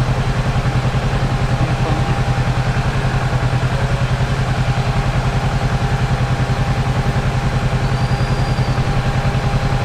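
Kawasaki Z650's parallel-twin engine idling steadily, with an even, rapid exhaust pulse that holds the same speed throughout.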